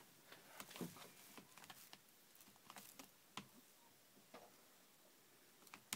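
Faint, scattered small clicks and ticks of a kitten biting and gnawing at the edge of a bed.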